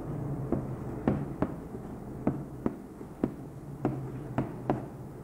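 Chalk striking a blackboard while writing: about ten sharp taps and knocks at uneven intervals.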